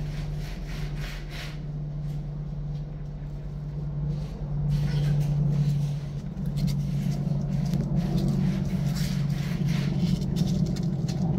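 Steady low mechanical hum, getting louder about five seconds in, with scattered light rustles and ticks on top.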